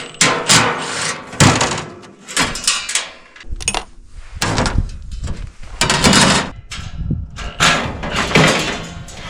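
Steel pieces of an old welding cart banging and clattering as they are pulled apart and handled: an irregular series of loud metallic knocks and scrapes.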